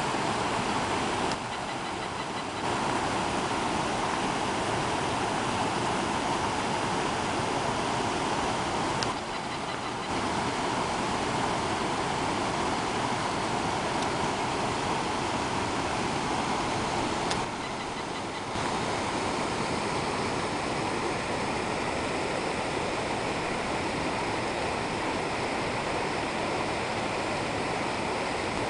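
Steady rushing noise of running water, dipping briefly three times.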